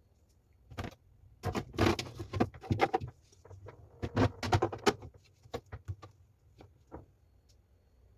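Irregular clicks and knocks of kitchen items being handled, bunched in two flurries about a second and a half and four seconds in.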